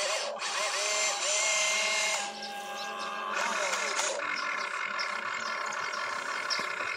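Electric motors and gearboxes of an RC tracked excavator whining as the boom lifts and the upper body swings round toward the dump truck. The whine comes in runs that stop and start, its pitch sliding up and down as the motors speed up and slow.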